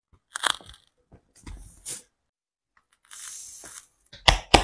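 Sole pieces of a disassembled Nike PG 1 basketball shoe, foam and clear plastic, being bent, pulled and handled by hand. There are short crackles and scrapes, a longer rustling tear about three seconds in, and a few sharp clicks near the end.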